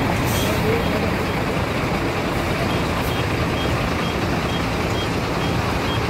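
Heavy diesel trucks idling: a steady low engine rumble. A faint high beep repeats about twice a second in the second half.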